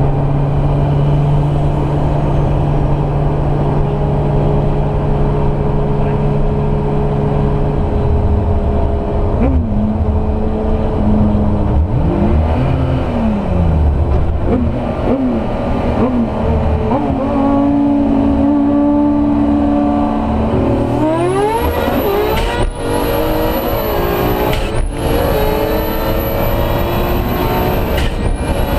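Turbocharged VW VR6 engine heard from inside the car, cruising steadily, then about twenty seconds in going to full throttle and pulling hard up through the gears, its pitch rising. A high whine climbs with each pull, and three quick gear shifts break the sound near the end.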